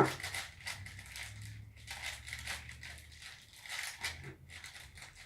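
A spoon scooping cornstarch and tipping it into a container. A sharp knock comes right at the start, followed by a string of soft, irregular scraping and crunching sounds.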